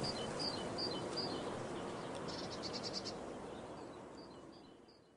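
Nature ambience of small birds giving short, repeated high chirps, with a brief fast insect-like trill a little past the middle, over a soft hiss. The whole bed fades out to silence at the end.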